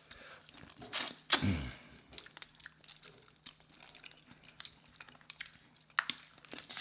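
Close-miked eating of boiled crawfish: scattered small cracks and clicks of shells being peeled, with chewing and one louder wet smack about a second and a half in.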